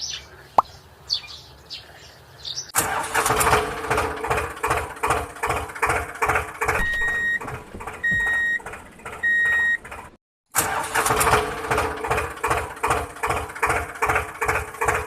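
Tractor engine coming in loud about three seconds in and running with a regular pulse. Three short beeps sound about a second apart in the middle, and the sound drops out for a moment before the engine resumes.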